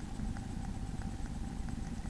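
Nest-box camera microphone picking up a steady low rumble and a thin electrical hum, with faint irregular ticks a few times a second.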